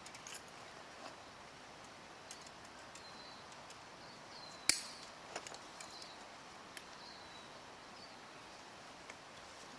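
Steel fence wire being wrapped and tied off by hand on a metal wire strainer: faint scattered metallic clicks and ticks, some with a brief high ring, and one sharp, louder clink about halfway through.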